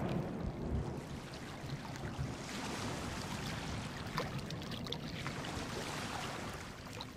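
Ocean surf washing steadily, with the low rumble of a thunderclap dying away in the first second or so.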